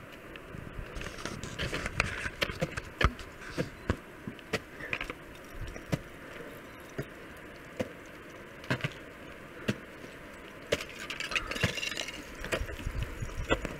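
Ice tool and boots working on hard glacier ice: irregular sharp knocks and scrapes as the points bite and slide, with light metallic clinking of climbing gear and a couple of short bouts of crunching.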